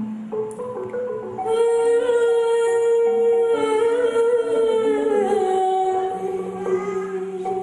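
A Sundanese sinden (female gamelan vocalist) singing a long, ornamented held vowel in kepesindenan style. The note slides down in pitch about five seconds in and is held again. Under her, a gamelan accompaniment plays struck metallophone notes.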